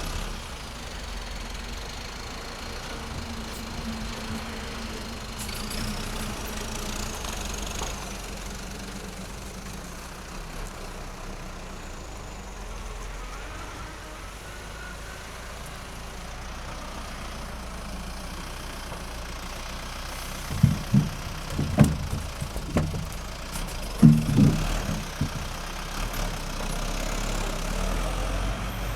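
Machinery running steadily with a low hum, with several loud thumps about two-thirds of the way through.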